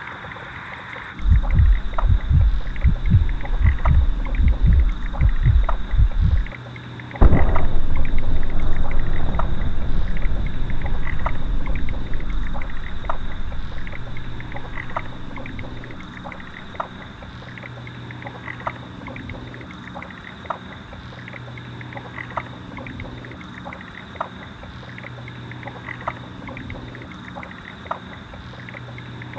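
Film sound design: low thumps about twice a second for about five seconds, then a sudden loud bang about seven seconds in that rings away over several seconds. It leaves a low steady hum with faint ticks about once a second.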